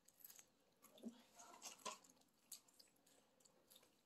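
Near silence, with faint chewing and small mouth clicks scattered through it.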